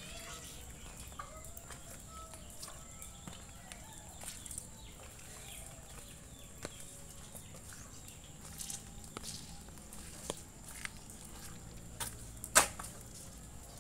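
Domestic chickens clucking now and then, with a few scattered sharp clicks and one loud sharp click near the end. A faint steady high whine runs underneath.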